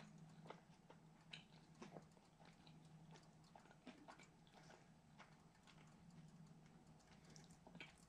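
Faint chewing of a fried chicken sandwich: irregular soft mouth clicks and smacks, over a low steady hum.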